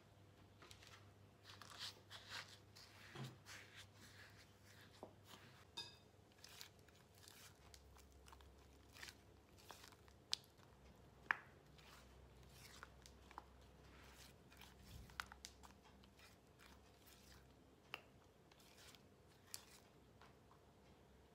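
Silicone spatula mixing sugar into softened cream cheese in a ceramic bowl: faint scraping, with scattered light taps of the spatula against the bowl.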